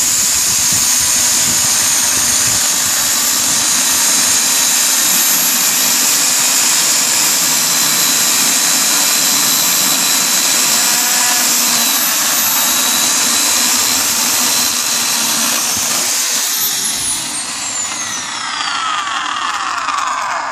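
Bosch AKE 30 S electric chainsaw cutting through a hand-span-thick log with a steady high whine. About sixteen seconds in, the cut is through and the motor winds down, its whine falling steadily in pitch until it stops.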